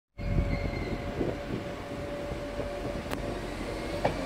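Merseyrail Class 508 electric multiple unit pulling away from the platform: a steady electric hum over a low rumble from the wheels and track, with a single sharp click about three seconds in.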